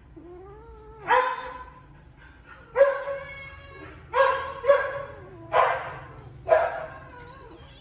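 Baby kittens giving short, loud cries about once a second, six in all, with a softer drawn-out meow near the start.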